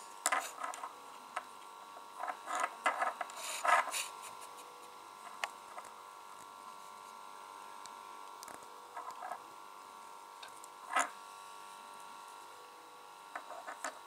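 Small plastic clicks and taps of fingers working a tiny two-pin wire connector, trying to push it into its socket, with several brief clusters and single clicks spaced out. A faint steady hum runs underneath.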